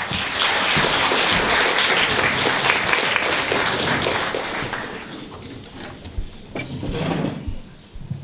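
Audience applauding, at full strength for the first four seconds and dying away about five seconds in, followed by a few scattered thuds.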